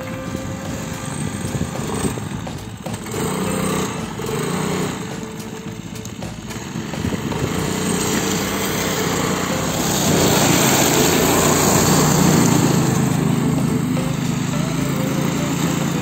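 A small engine running steadily, getting louder about ten seconds in.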